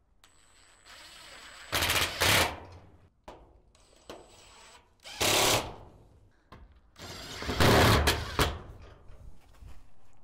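Cordless impact driver driving screws through overlapped steel shed wall sheets: three bursts of rapid hammering rattle about two, five and eight seconds in, each led by a thin high motor whine.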